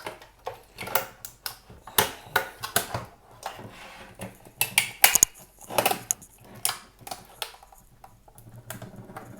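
Plastic housing of a Cisco Meraki MR46 access point being pried apart: irregular clicks, snaps and scrapes as the pressure-fit tabs holding the back and front together are worked loose, with the sharpest snaps about halfway through.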